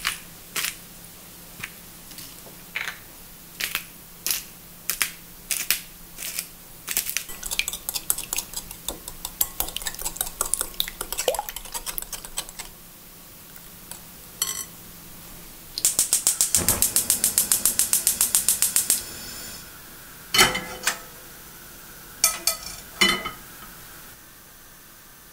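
Eggs beaten by hand in a glass bowl, the utensil clinking against the glass in a quick, busy run that stops around halfway. Then a gas hob's igniter clicks rapidly and evenly for about three seconds, followed by a few metal knocks as a frying pan is set on the burner grate.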